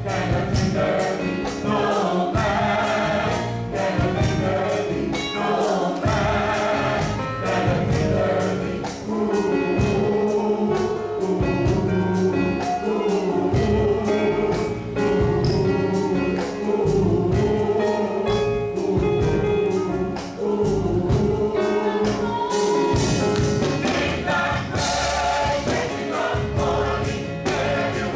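Gospel choir singing, backed by a band with a steady beat.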